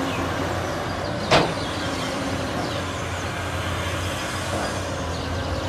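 Cat 6015B hydraulic mining excavator's engine running steadily under load while it loads a dump truck, with a single sharp clank about a second and a half in.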